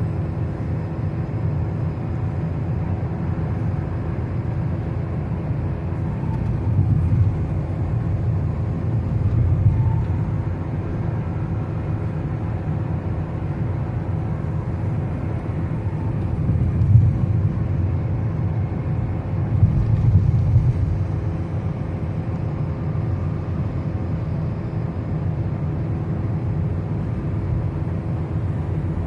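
Steady road and engine noise of a car driving on a highway, a low rumble with a few brief swells in loudness, four in all.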